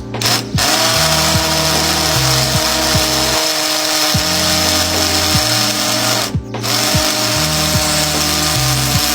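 Electric drill running steadily with a masonry bit, stopping for a moment about six and a half seconds in and starting again.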